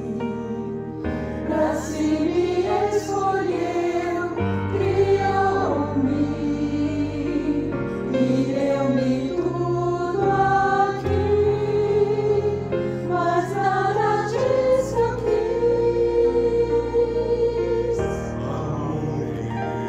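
Women's voices of a church choir singing a slow sacred anthem in parts, over sustained low accompaniment notes.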